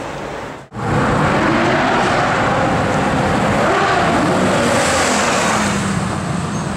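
Supercar engine running loud and hard, cutting in abruptly just under a second in after a brief dropout; its pitch wavers and sinks slightly later on.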